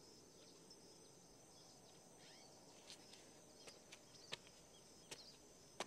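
Faint summer outdoor ambience: a steady high insect drone with scattered bird chirps, and a few light footsteps from about halfway through.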